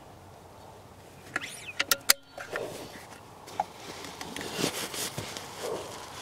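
Weihrauch HW97 underlever spring air rifle being handled and reloaded: a quick run of sharp metallic clicks about a second and a half to two seconds in, then irregular rustling and small knocks of handling.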